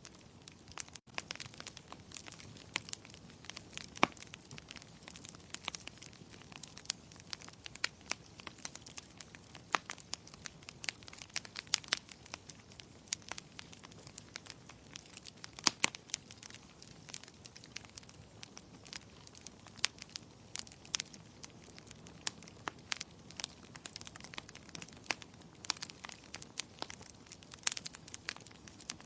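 Wood fire in a fireplace crackling: irregular sharp pops and snaps, several a second, over a faint steady hiss, with a few louder pops scattered through.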